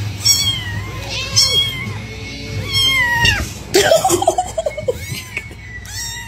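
Kitten mewing again and again, high thin cries that fall in pitch, about one a second. A lower, rougher call cluster comes about two-thirds of the way through.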